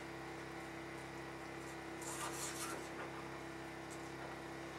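Quiet room tone with a steady low hum, and a faint short sound about two seconds in.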